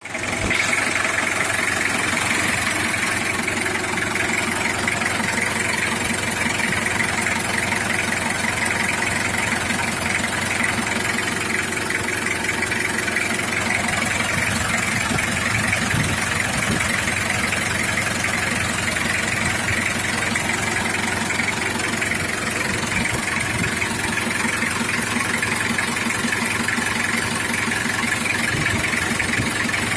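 Diesel engine of a 2001 Toyota Kijang Kapsul idling steadily, with a rapid, even pulsing.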